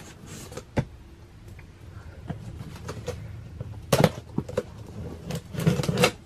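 A small blade slicing the packing tape on a cardboard shipping box and the cardboard being handled: scattered scrapes and clicks, with louder crackling strokes about four seconds in and again near the end.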